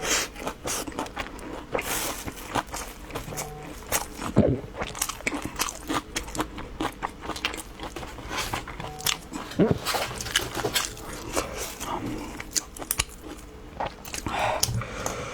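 Close-miked eating: crunchy bites and chewing, with rapid wet mouth clicks throughout and a couple of heavier bites about four and a half and ten seconds in.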